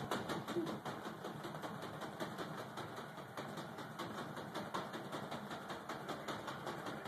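Pink latex punch balloon being batted rapidly on its elastic band, a fast, even run of soft taps and slaps.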